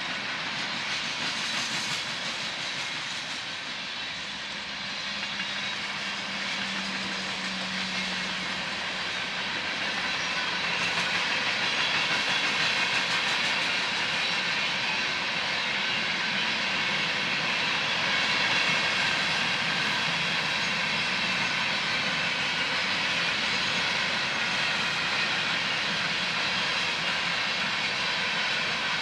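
Freight train rolling past, a steady hiss and rumble of wheels on rail that grows a little louder about a third of the way in.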